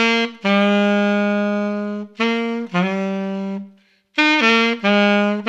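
Solo saxophone playing a short blues lick twice, each phrase ending on a long held low note: the lick goes up to the fourth and resolves down to the major third.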